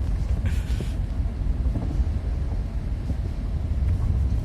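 Steady low rumble of a motor vehicle on the move, with a brief hiss about half a second in.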